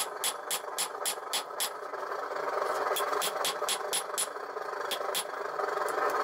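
Hand hammer striking hot 5160 steel on an anvil during forging, with rapid ringing blows about four to five a second in two runs and a pause of about a second between them. A steady rushing hum runs underneath.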